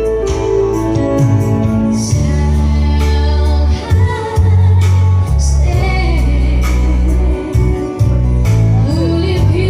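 Music: a song with a singing voice over deep, changing bass notes.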